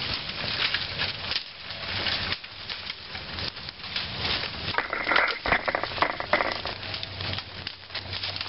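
Dry leaves and brush crackling and rustling as they are handled, full of small snaps. It grows louder about five seconds in for a second or so.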